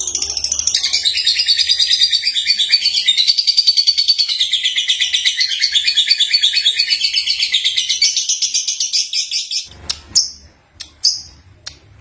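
Young lovebird (Agapornis) singing: a long, loud run of rapid, high-pitched chattering that breaks off about ten seconds in, followed by a few short separate chirps.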